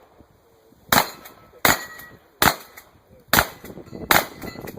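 Winchester 1300 pump-action shotgun fired five times in quick succession, a shot about every 0.8 seconds, the first about a second in.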